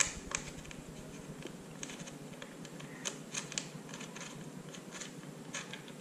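Faint, scattered small clicks as an Allen key turns in the bolt of a Shark Race-R Pro helmet's visor plate kit, loosening it.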